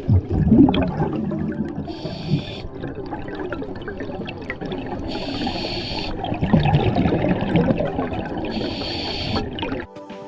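Scuba diver breathing through a regulator underwater: three hissing inhalations, each about a second long, with exhaled bubbles gurgling and rumbling between them.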